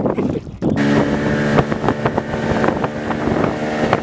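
Outboard motor pushing a fishing boat at speed: a steady engine drone over wind rushing across the microphone. It cuts in abruptly under a second in, after a moment of wind and water noise.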